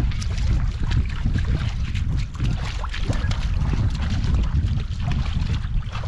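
Wind buffeting the microphone as a steady low rumble, with splashing from a person and a dog wading through shallow lake water off a pebble shore.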